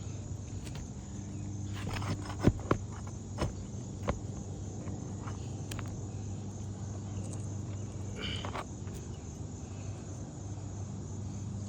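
A roof snake working under lifted asphalt shingles to pry out nails, giving a few sharp metal clicks and knocks about two to four seconds in, over a steady low hum.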